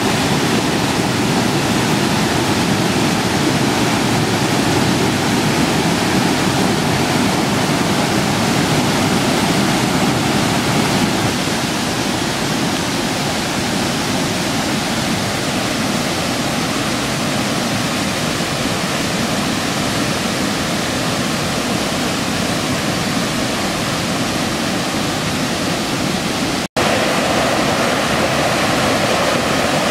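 Waterfall: a forest stream pouring over rocks as white water, a steady, loud rush. It drops out for an instant near the end, then resumes slightly brighter.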